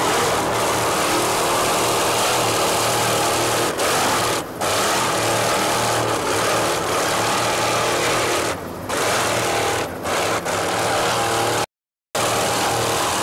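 Offshore racing powerboat's Mercury inboard engines running at speed: a loud, steady engine drone that dips briefly a few times and cuts out completely for a moment near the end.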